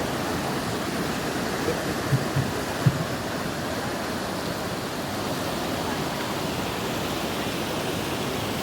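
Lodh Falls waterfall rushing as a steady roar of falling water, with a few short low thumps about two to three seconds in.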